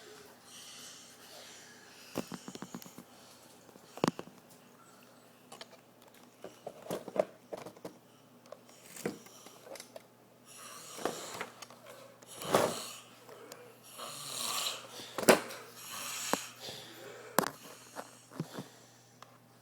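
A man snoring as he sleeps passed out drunk, in irregular breaths with sharp clicks in between.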